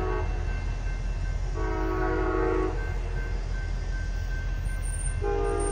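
Amtrak passenger train's horn sounding a chord in separate blasts as the train pulls away. One blast ends just at the start, a second lasting about a second comes in the middle, and a third begins near the end, all over a low steady rumble.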